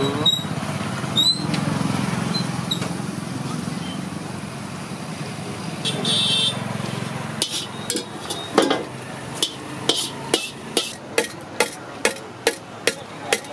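Metal skimmer knocked repeatedly against the rim of an iron kadai of frying oil, sharp clanks about two a second through the second half.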